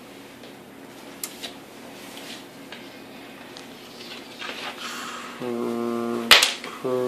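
A few faint light clicks, then about five seconds in a low voice holding steady, level notes, as in humming, broken by one sharp click and starting again near the end.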